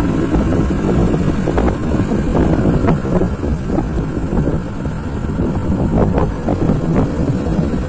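Motorcycle running along a rough track, with wind buffeting the microphone and scattered knocks and rattles from the bumps.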